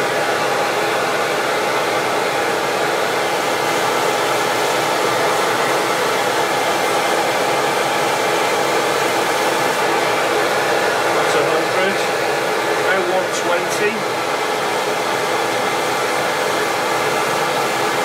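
CamVac CGV336-4 twin-motor dust extractor running steadily with both motors on, drawing air through its hose at a spinning woodturning lathe while a pen blank is sanded. A few light clicks come about two-thirds of the way in.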